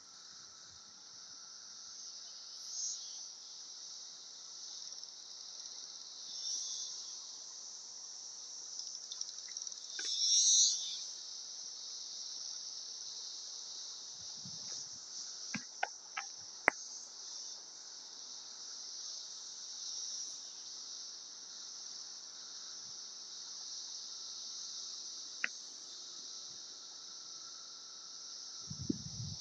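A chorus of cicadas buzzing steadily at a high pitch, with a few swells where a nearer one calls louder, the loudest about a third of the way in. A few sharp clicks sound around the middle.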